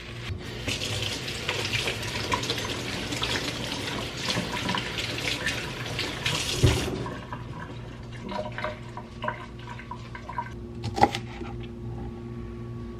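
Kitchen faucet running as green onions are rinsed under it, a steady splashing hiss that stops about seven seconds in with a thump. Then light clicks and knocks of handling, with one sharper knock near the end.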